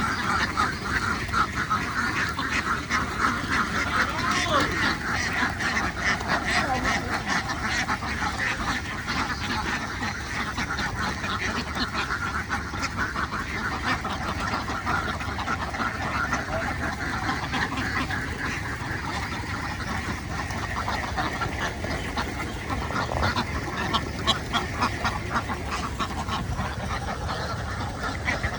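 A large flock of domestic ducks quacking continuously, many birds calling over one another in a dense, unbroken chorus.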